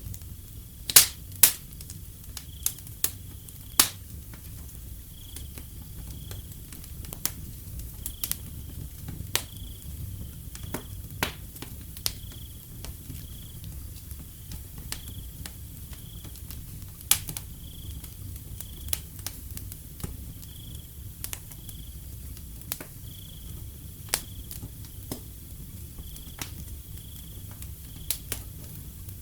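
Wood fire crackling, with irregular sharp pops and snaps over a low steady rumble of the flames. Crickets chirp steadily in the background at a high pitch.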